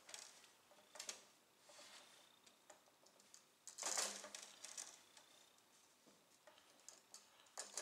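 Faint rustling and small clicks of hands lashing a steel cotter pin to a wooden spar with thin cord, with a longer scratchy rustle about four seconds in.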